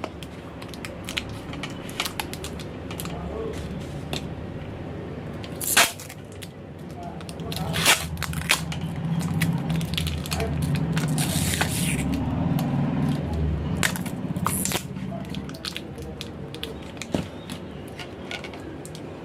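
Small plastic parts and tools being handled during a repair: scattered clicks and taps, with a few louder rasping scrapes partway through, over a steady low hum.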